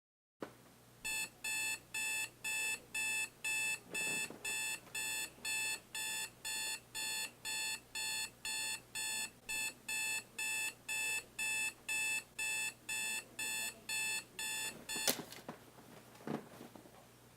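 Electronic alarm clock beeping, about two short beeps a second. It stops with a sharp knock about fifteen seconds in, and a softer thump follows about a second later.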